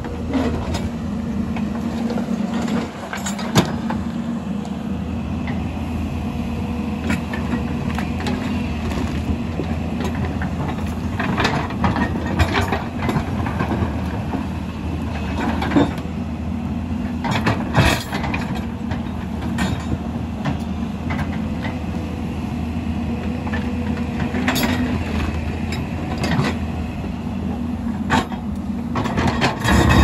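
Hyundai crawler excavator's diesel engine running steadily under load while its bucket digs and moves broken rock, with repeated sharp clanks and knocks of stone against steel.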